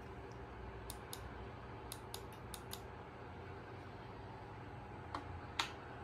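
Hampton Bay Hawkspur ceiling fan running with a steady noise and faint hum. A few sharp clicks break through: a quick run of them about two seconds in and two more near the end.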